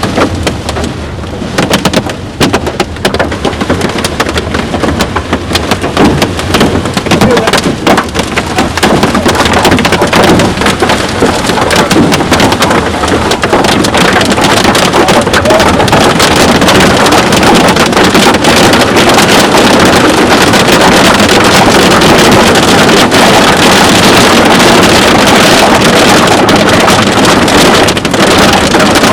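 Hail and rain pelting a storm-chasing vehicle's body and windshield: many sharp hits at first, building from about ten seconds in into a steady, very loud wash of noise.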